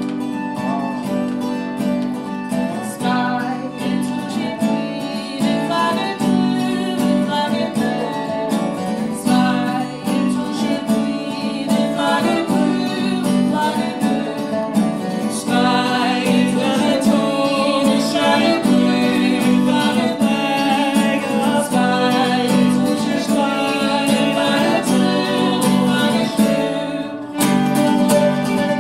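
Acoustic guitar, dobro and fiddle playing an old-time folk song together at a steady pace, with a momentary break just before the end.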